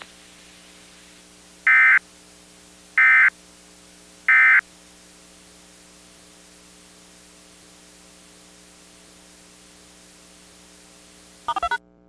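Three short bursts of EAS SAME digital data tones, the end-of-message code that closes an Emergency Alert System broadcast, each about a third of a second long and a little over a second apart. Under them runs a steady hum with faint hiss. Near the end there is a brief crackle, then the audio cuts off.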